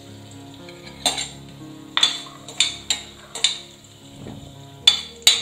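Metal spoon clinking against the side of a pressure cooker about seven times at uneven intervals while stirring raisins frying in ghee, over a light sizzle.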